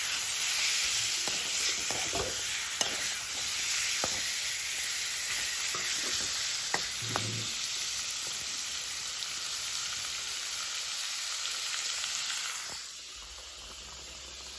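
Pork pieces sizzling as they fry in a wok, with a metal spatula scraping and clicking against the pan as they are stirred. The sizzle drops quieter about thirteen seconds in.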